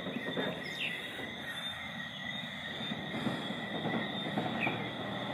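Night chorus of frogs and insects: a steady high-pitched ringing with short rising chirps every second or two, over a low background rumble.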